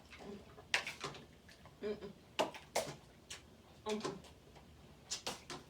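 Crab-leg shells being cracked and snapped open by hand: a series of sharp, short cracks, about eight spread irregularly through a few seconds.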